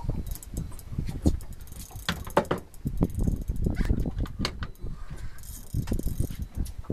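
Fishing reel being cranked by hand, its gears and ratchet clicking in quick, uneven runs over a low rumble.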